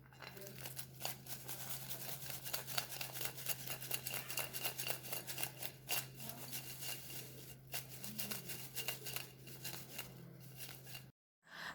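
Crispy fried potato french fries being tossed and mixed with spice powders, an irregular run of light clicks and dry rustles as the crisp fries knock against each other and the dish, with a faint steady hum underneath.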